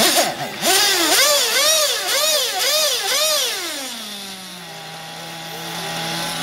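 Small glow-fuel nitro engine of a 1:8 scale RC off-road buggy, revved up and down in about six quick blips, then dropping back to a steady idle about four seconds in.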